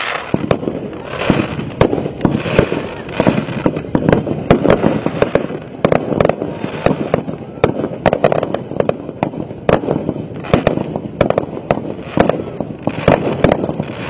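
Fireworks display going off: many sharp bangs and crackles in quick succession as aerial shells and crackling stars burst and overlap.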